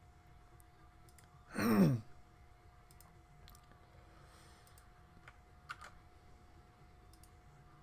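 A man's short groan-like vocal sound, falling in pitch, about one and a half seconds in, followed by a few faint computer keyboard or mouse clicks.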